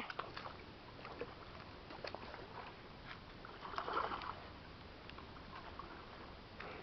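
Faint water sloshing and lapping as a person wades into a river, with a few small knocks and a slightly louder swell about four seconds in.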